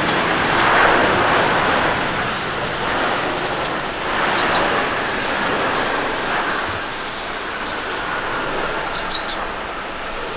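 Airbus A350-1000's Rolls-Royce Trent XWB jet engines during the landing rollout on a wet runway: a steady rushing noise that swells about a second in and again about four seconds in, then gradually eases.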